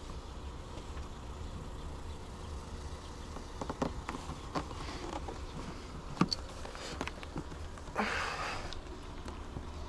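Small clicks and knocks of hands handling and fitting mounting pieces for window screens, loudest about six seconds in, then a short rustle near the end, over a steady low hum.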